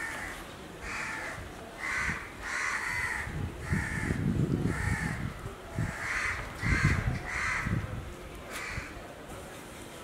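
A crow cawing over and over, a string of about a dozen short harsh caws, one or two a second, with a few low rumbling bumps in the middle.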